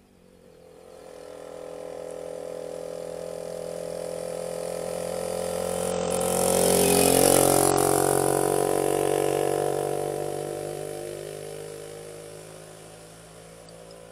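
Historic motorcycle engine approaching from a distance and riding close past, its note dropping in pitch as it goes by about seven seconds in, then fading away up the road.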